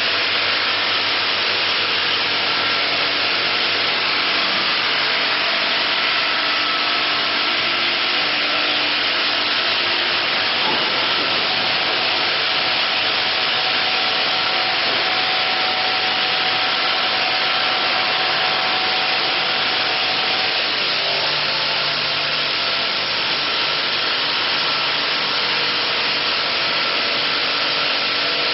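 Steady hiss of stone-processing plant machinery, with a faint steady hum under it. It does not change.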